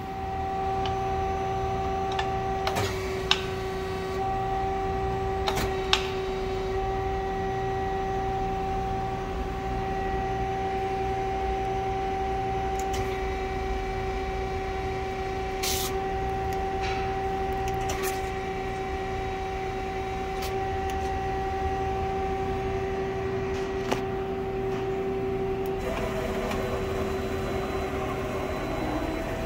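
Femco Durga 25E CNC turning center lathe running with a steady hum, broken by a few sharp clicks. Near the end the hum changes pitch.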